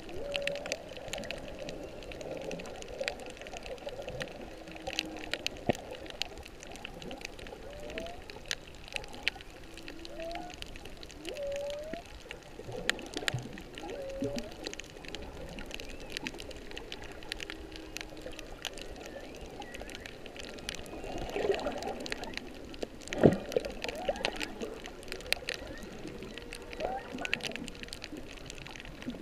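Humpback whale song recorded underwater: a run of short moans and upswept calls that rise and bend, repeated every second or two. Under it is a constant crackle of clicks, and there is one loud low thump about two-thirds of the way through.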